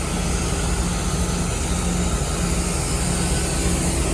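Steady machinery drone with a low hum and a constant hiss.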